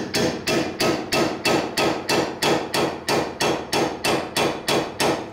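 Hammer blows on a pickle fork, a wedge-type ball joint separator, in a steady run of about three strikes a second, each ringing briefly. The fork is being driven in to pop the upper ball joint out of the steering knuckle.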